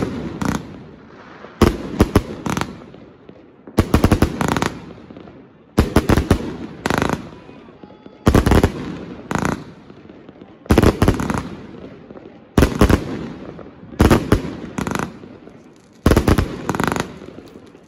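Triplex XB4100 "Air Force One" fireworks cake firing aerial shots, in groups of three or four sharp bangs about every two seconds, with crackling between the groups.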